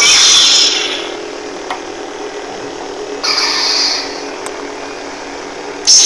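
Electronic lightsaber replicas switching on one after another: three ignition sounds, each a short hissing swell, about three seconds apart, over the steady electronic hum of the lit blades.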